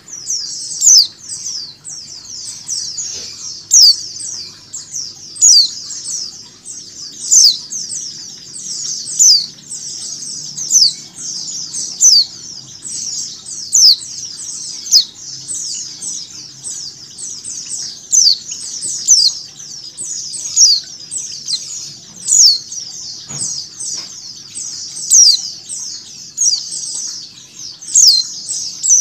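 A flock of white-eyes (pleci) twittering in a dense, unbroken stream of high chirps, with louder down-sweeping chirps standing out every second and a half to two seconds.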